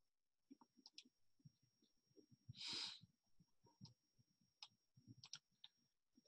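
Near silence with a few faint, scattered computer mouse clicks, and a brief soft puff of noise about two and a half seconds in.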